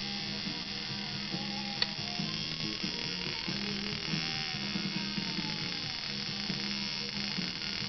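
Coil tattoo machine buzzing steadily as it works ink into a knuckle tattoo, with music playing in the background. There is one sharp click about two seconds in.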